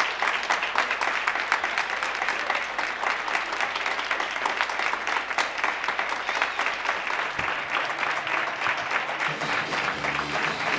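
Many people clapping together from balconies along a street, a dense and continuous applause. About seven seconds in, music with steady low notes comes in under the clapping.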